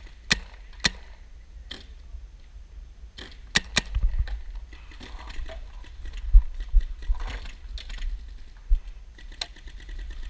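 Paintball markers firing: sharp single pops spaced out over the first few seconds, a quick pair about three and a half seconds in, and another pop near the end.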